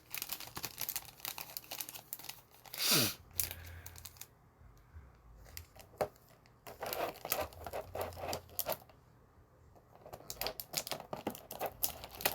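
Small desk handling sounds: groups of quick clicks and light crinkling, with quiet pauses between them and a short falling swish about three seconds in.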